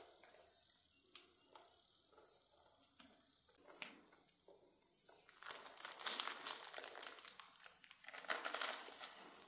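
Rustling and crinkling handling noise, louder in two stretches about six and eight seconds in, with scattered light clicks.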